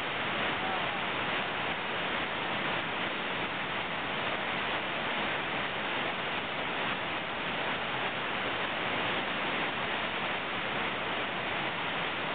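Steady rushing of a large whitewater rapid, a constant wash of churning water with no breaks.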